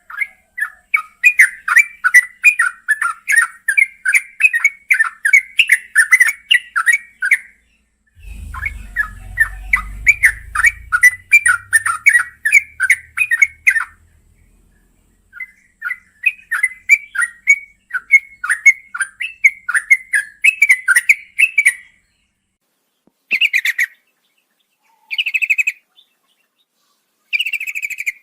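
Yellow-vented bulbul (trucukan) singing long, fast chattering runs of short notes, about three or four a second, in three long runs followed by shorter bursts near the end. A low rumble sits under the start of the second run.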